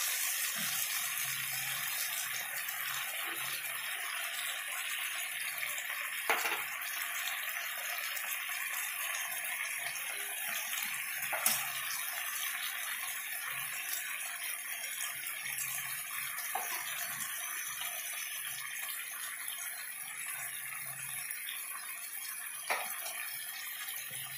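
Liquid sizzling and bubbling steadily in a hot pan of frying vegetables just after water has gone in. The hiss slowly dies down, with a few sharp clicks.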